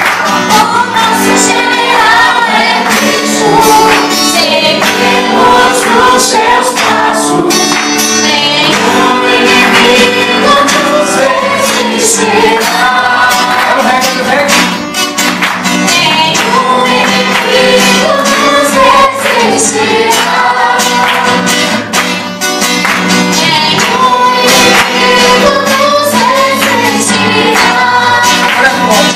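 Live gospel worship song: a man and a woman singing into microphones over a strummed acoustic guitar, amplified through the hall's speakers.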